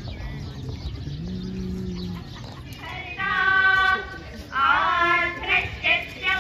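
A group of girls' or young women's voices singing together in long held, high notes, beginning about three seconds in; before that only a low murmur of the waiting crowd.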